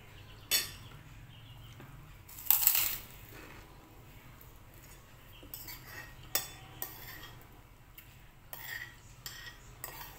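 Metal spoon and fork clinking and scraping against a ceramic soup bowl while eating, a series of separate short clinks, with one longer, louder scrape about two and a half seconds in.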